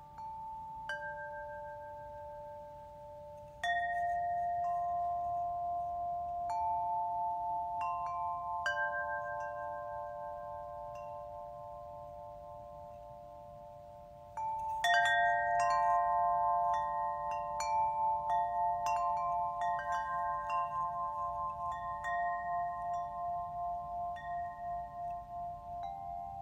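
Small chime bells ringing: clear metallic tones struck one after another and left to ring out, a few scattered strikes at first, then a flurry of overlapping strikes about fifteen seconds in, their tones wavering as they ring together.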